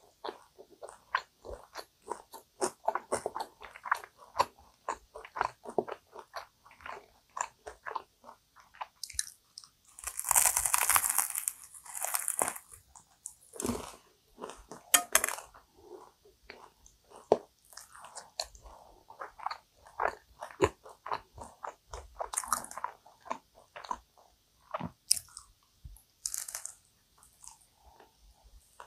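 Close-miked chewing of a cream-filled kouign-amann pastry (amann chou), with many small wet mouth clicks and crunching of the caramelised pastry crust. The crunching is loudest and densest about ten to twelve seconds in.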